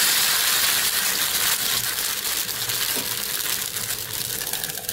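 Fermented rice appam batter sizzling and crackling in a hot, oiled appam pan (appachatti). The hiss is loudest at first and dies down gradually as the batter sets and bubbles.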